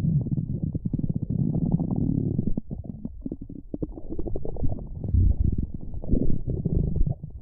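Stomach growling: low gurgling rumbles that swell and fade in waves, with the loudest surges past the middle and near the end.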